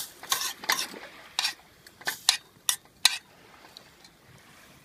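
Metal utensil stirring and scraping in a camp cooking pot, about eight short scrapes and clinks over the first three seconds.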